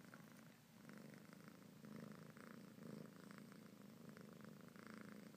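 Kitten purring, faint and close, swelling and fading in a slow rhythm.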